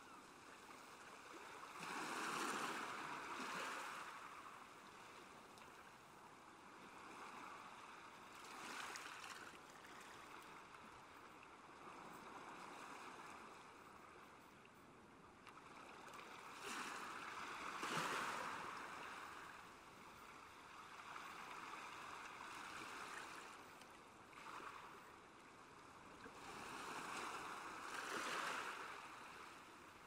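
Soft sea waves washing in and ebbing away, each swell building over a second or two and fading, several seconds apart.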